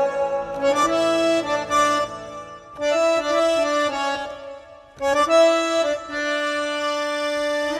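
Instrumental interlude of a Bollywood song: an accordion-like free-reed instrument plays a sustained melody in three phrases, with short breaks about three and five seconds in, over a low held accompaniment at first.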